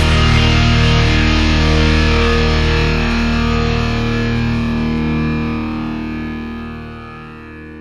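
Background music: a rock song ends on a held, distorted electric-guitar chord that rings on and slowly fades out.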